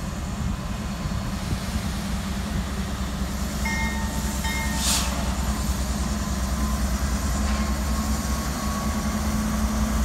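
A train on the tracks close by, its locomotive giving a steady low rumble that grows a little louder. A brief sharp noise comes about five seconds in.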